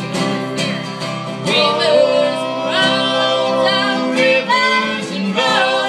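A live band plays a country or folk song, with guitar backing and voices singing long held notes that slide between pitches.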